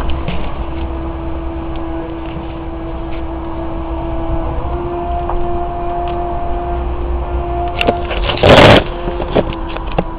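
Street noise: a steady low rumble with a steady hum, broken about eight and a half seconds in by one loud, brief burst of noise.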